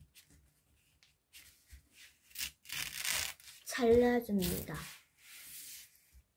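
A sheet of origami paper rustling and tearing apart by hand along its crease, in several short noisy strokes that start about two seconds in.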